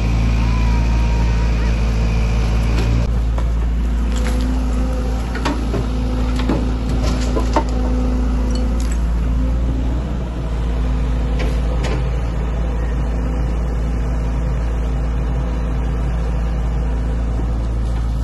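Heavy diesel engine of a Sany excavator running steadily under work. Its engine note shifts about three seconds in, and a scatter of sharp knocks comes in the middle.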